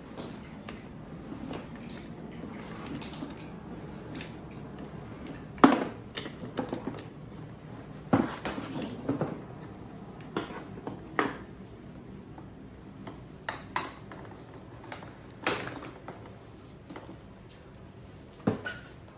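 Irregular knocks and clicks of a pressure washer's hard plastic parts being handled, around a dozen separate sharp strikes over a low steady background.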